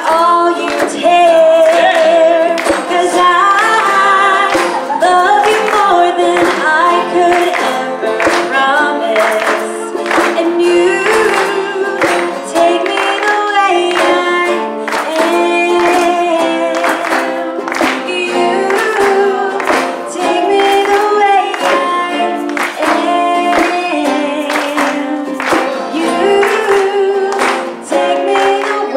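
A woman singing a song into a microphone, amplified, over held instrumental chords and a steady percussion beat.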